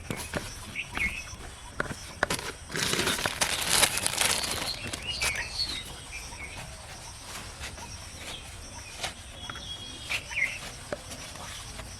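Birds chirping now and then over outdoor background noise. A louder noisy burst lasts a little under two seconds near the start, and a few sharp clicks are scattered through.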